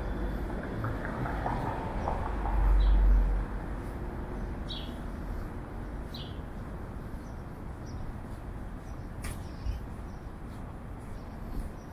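City street ambience: a steady wash of traffic, a short low rumble a few seconds in, and a few brief bird chirps.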